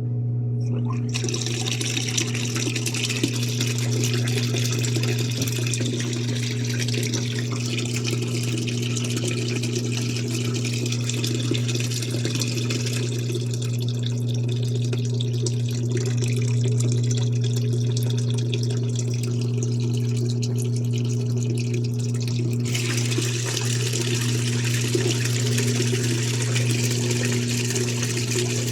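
Water running steadily, as from a tap, through a flow-measuring setup, over a steady low electric hum. The water's hiss starts about a second in, goes duller for several seconds in the middle, then brightens again.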